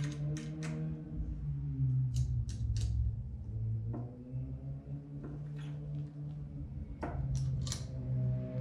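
Light metal tool clicks in short runs of three or four, a few seconds apart, from a hand tool tightening the clamp bolts of a motorcycle steering damper. Low instrumental background music runs underneath.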